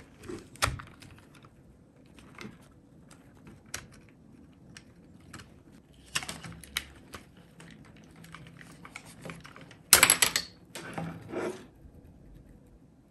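Hard plastic clicking, snapping and rattling as the plastic headband cover of Superlux HD681 EVO headphones is pried off and handled. Scattered sharp clicks are followed by a louder burst of clattering about ten seconds in.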